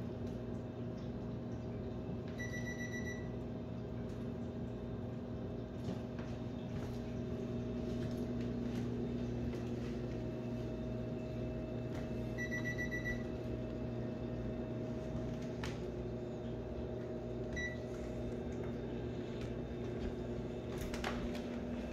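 Steady kitchen appliance hum, with three short bursts of rapid high electronic beeping, the last one briefest. A few faint clicks.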